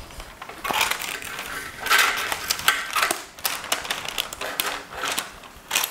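Baking parchment being cut with scissors and handled, a run of crisp snips, crinkles and rustles.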